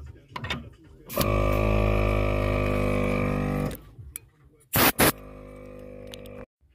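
Portable air compressor running with a steady, even drone for a couple of seconds, then stopping. Then two short, loud blasts of air from a tyre inflator gun.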